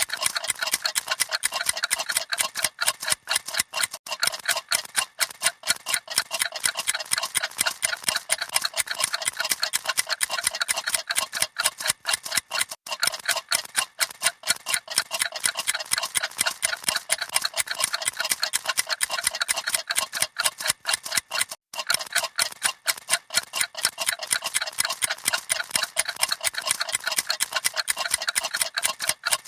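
Several mechanical clocks ticking at once, a dense, fast, overlapping clatter of ticks with no steady beat.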